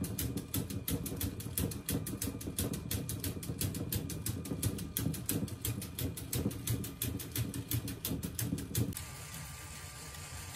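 A motor-driven LEGO Technic tourbillon mechanism running: rapid, even clicking, about five a second, over the rattle of plastic gears. About nine seconds in this stops suddenly, and a quieter, steady motor hum follows.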